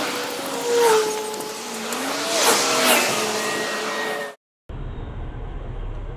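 RC crawler's stock 540 brushed electric motor and gears whining, the pitch gliding up and down with the throttle, while cars pass on the road beside it with a couple of louder whooshes. About four seconds in the sound cuts off, then a steady, quieter outdoor background follows.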